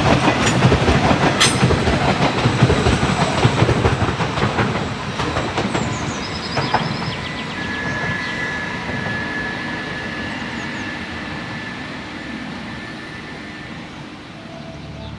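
Siemens ICE 4 (class 412) high-speed train running past, its wheels clattering rapidly over the track. The uploader notes that the unpowered bogies with inside axle bearings clatter audibly, while the powered bogies sound drier. The clatter fades away as the train recedes, with a thin high whine for several seconds in the middle.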